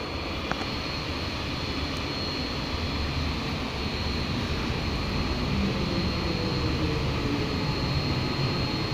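MTR M-Train (Metro Cammell electric multiple unit) pulling into an underground platform behind platform screen doors. Its rumble grows steadily louder, and a faint falling whine comes in the middle as it slows.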